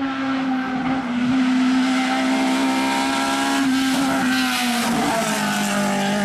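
Lada 2101 hillclimb race car's 1.6-litre naturally aspirated four-cylinder engine running hard at high revs as the car approaches at speed. The steady, high engine note dips slightly about three-quarters of the way through.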